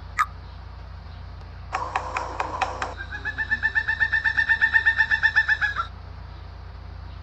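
A bird call: a quick burst of rapid knocking, then a fast rattling run of repeated notes lasting about three seconds.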